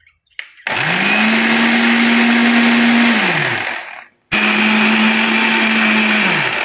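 DigiSmart mixer grinder blending egg, garlic and oil into mayonnaise in two pulses of about three seconds each: the motor spins up fast to a steady whine, holds, then winds down after switch-off. A click comes just before the first pulse, and the second pulse starts abruptly.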